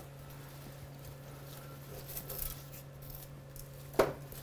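Faint rustling of tomato foliage being handled, then one sharp scissor snip near the end, over a low steady hum.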